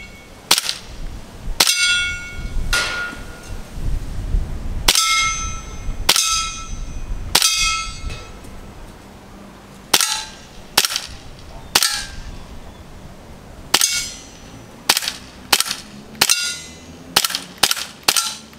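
CO2 gas-blowback airsoft Desert Eagle firing about fifteen single shots, each a sharp crack, several with a short metallic ring, the shots coming quicker near the end as the CO2 cartridge is used up.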